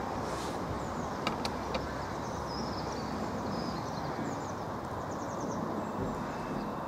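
Siemens Desiro Class 350 electric multiple unit drawing slowly into the platform: a steady rumble of wheels and traction equipment, with two sharp clicks about a second and a half in.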